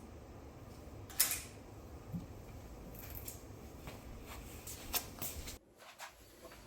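Quiet room with a few light clicks and taps, the sharpest about a second in; the background hiss drops away abruptly near the end.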